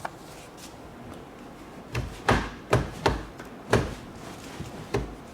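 A string of sharp knocks and thumps, about six over three seconds and starting about two seconds in, as the stuck steering wheel is struck and jerked to work it loose from the steering column shaft. The retaining bolt is threaded back in a couple of turns.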